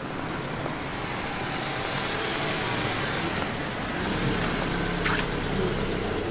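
A car driving past close by, its engine and tyres growing louder over the first second or so and staying loud.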